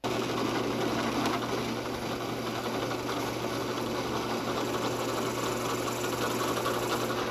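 Drill press running steadily with a constant hum as its starter bit bores a centre hole into an end-grain wooden pen blank.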